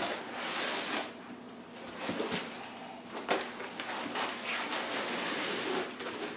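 Foam packing blocks scraping and rubbing against a cardboard box and plastic wrap as they are pulled free, with rustling plastic and several short swishes.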